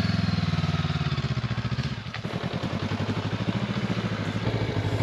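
Honda CB500X parallel-twin motorcycle engine running steadily with an even pulsing beat, dipping briefly about two seconds in.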